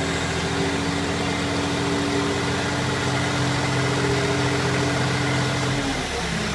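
Bulldozer diesel engine running steadily; its note drops lower about six seconds in as the engine is throttled down.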